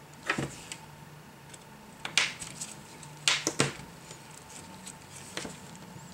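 Gloved hands handling the parts of an opened iPad mini on a table: about five short clicks and taps of plastic and metal with a little rustling, the loudest a pair just past the middle.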